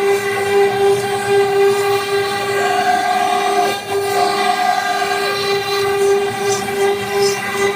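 Milling machine cutting teeth, running with a steady high whine with many overtones and a brief dip just under four seconds in.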